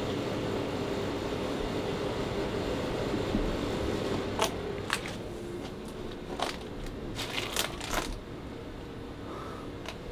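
Dry wood and palm-frond debris crackling and snapping in a string of sharp, irregular cracks as someone pushes and steps through collapsed roof timbers. Before that, a steady low hum runs for about the first four seconds.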